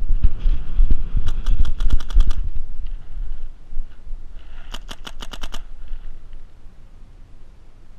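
Planet Eclipse Etek 5 electronic paintball marker firing .50 caliber low-impact paintballs in two rapid strings of about nine shots a second: about ten shots a little after one second in, then about eight more around the fifth second. A low rumble on the microphone accompanies the first string.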